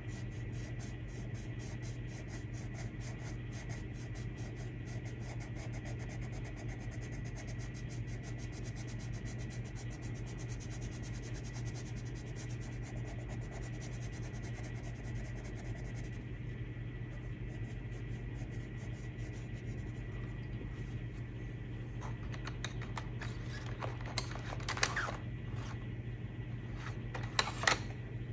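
Coloured pencil scratching on paper in quick back-and-forth shading strokes, faint, over a steady low hum. Near the end come two short louder clatters as pencils are handled and a new one is taken from the set.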